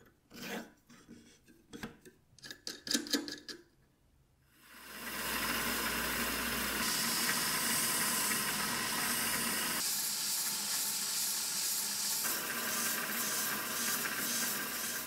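A few light clicks and taps as a wooden handle is threaded onto a brass shaft held in a small lathe's chuck, then the lathe spins the handle while sandpaper is held against it: a steady hiss of sanding over the running lathe.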